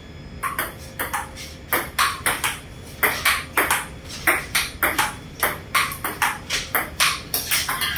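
Table tennis rally: the ball clicking off paddles and the table in a quick, steady rhythm of about three to four hits a second, starting about half a second in.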